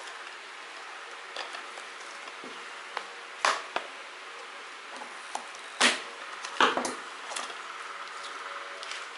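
Plastic shrink wrap and tape on a DVD case being pulled off and cut with scissors: scattered short rustles, snips and sharp clicks, the loudest around the middle, then a stretch of crinkling.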